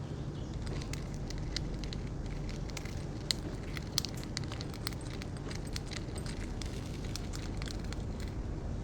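Budgerigars pecking and chewing food, an irregular run of small sharp clicks and crackles.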